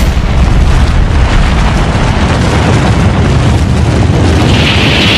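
Dramatized atomic bomb explosion sound effect: a sudden deep boom, then a loud, continuous rumble, with a hiss building near the end.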